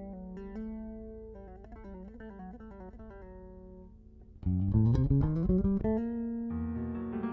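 Electric bass guitar playing a solo line of single plucked notes. About four and a half seconds in, the band comes in much louder, piano with the bass, opening with a quick rising run.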